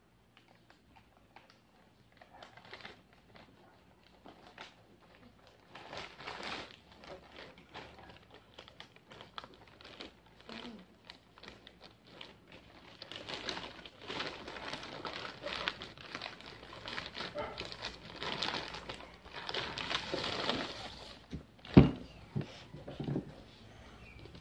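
Plastic courier mailer bag being torn open and crumpled by hand: bursts of crinkling and rustling that grow louder and denser about halfway through. A single sharp thump near the end.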